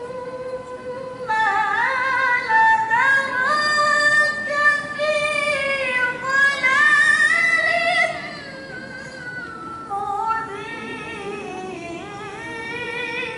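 A young woman's solo Qur'an recitation (tilawah) in the melodic style, sung into a handheld microphone, with long held notes that step up and down in pitch. It is louder and higher through the first half, then softer near the end.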